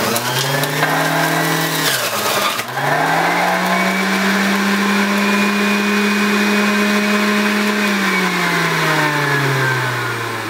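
Hamilton Beach Big Mouth juice extractor switched on and shredding apple and lemon pieces. The motor whines up to speed with a gritty crackle for the first couple of seconds and briefly dips in pitch, then runs at a steady high whine. Near the end the whine slowly falls in pitch.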